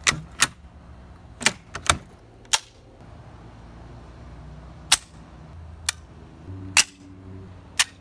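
Sharp metallic clicks and clacks of German firearm actions worked by hand: an 1888-dated bolt-action rifle's bolt and a Luger pistol's toggle action. About ten snaps come unevenly spaced, a few with a short metallic ring.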